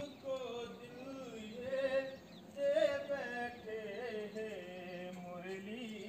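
A singing voice carrying a melody with long, smoothly bending held notes, in a chant-like style.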